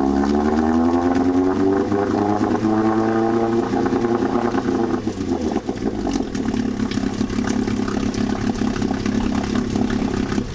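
1964 Evinrude Sportwin 9.5 hp two-cylinder two-stroke outboard running in a test tank on its first run after a water-pump rebuild. It revs up over the first few seconds, then settles to a steady lower speed from about five seconds in.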